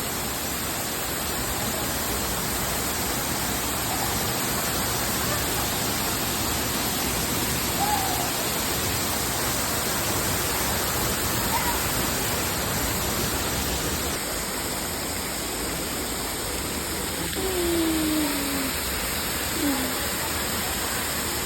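Waterfall pouring close by: a steady, even rush of falling water.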